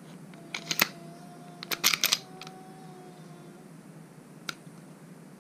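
Taurus G3 pistol's slide and barrel being worked back onto the frame, giving sharp metal-on-polymer clicks and clacks. There are a few clicks about half a second in, a quick burst of clacks around two seconds in, and a single click near the end.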